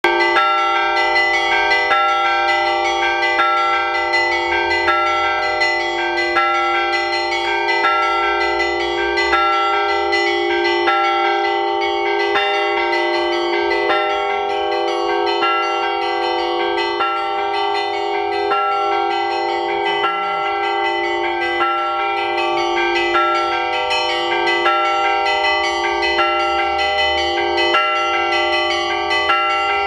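Russian Orthodox church bells ringing before the evening service. Several bells of different pitches are struck in a fast, repeating pattern, and their ringing overlaps and sustains.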